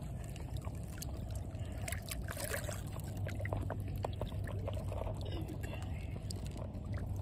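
River water sloshing and trickling with scattered light splashes, as a catfish is held in the water for release, over a steady low hum.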